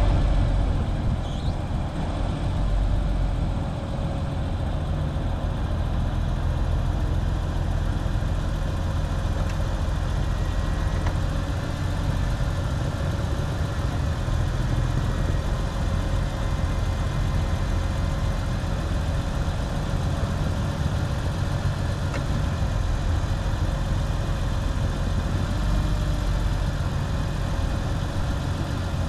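A 2001 BMW E46 convertible idling while its power soft top folds down, with a steady whine from the top's hydraulic pump over the engine.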